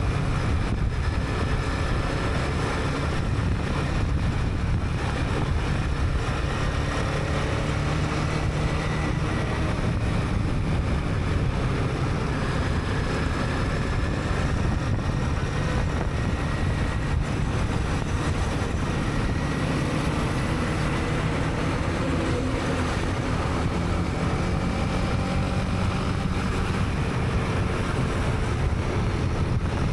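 Honda CB300R single-cylinder motorcycle engine running under way, with a steady rumble of wind and road noise on a helmet-mounted camera. Faint engine tones rise and fall gently as the speed changes.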